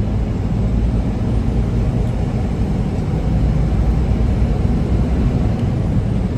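Steady low rumble of a semi truck's engine and road noise inside the cab while driving.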